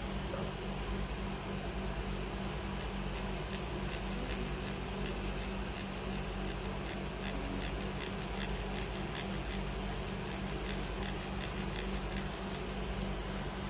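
Steady electric hum of a handheld permanent-makeup tattoo pen running during an eyebrow tattoo, with a run of quick, light scratchy ticks through the middle as the needle works the brow.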